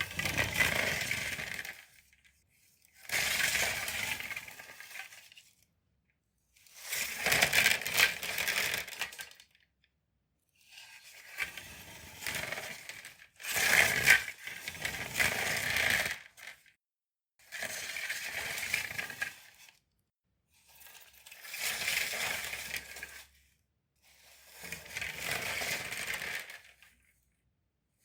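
Japanese folding hand fan's slats clattering and rustling, repeated in about eight bursts of two to three seconds each with short silences between.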